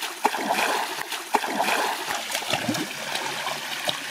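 Shallow forest stream running over a rocky ledge in a small cascade, with irregular splashes, more frequent in the first half.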